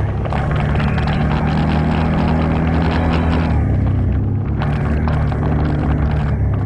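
ATV engine running under way on a trail, with rattling and clatter from the machine over rough ground. The clatter eases off for about a second around four seconds in.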